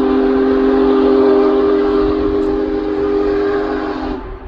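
Steam whistle of Union Pacific Big Boy locomotive 4014 blowing one long blast, a steady low chord of several tones that stops about four seconds in.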